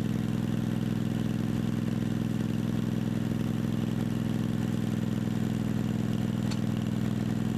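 Vanguard 16 HP V-twin engine of a Snapper riding mower running steadily and evenly.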